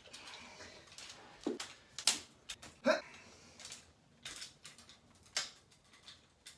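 Camera tripod being set up: a series of separate sharp clicks, knocks and rattles as its legs are pulled out and locked and the tripod is raised and handled.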